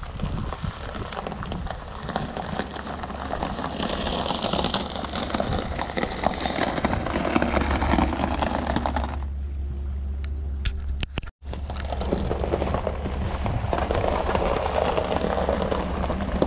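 Wind buffeting the microphone over the steady low hum of a pickup truck's engine idling; the sound cuts out abruptly for a moment about eleven seconds in.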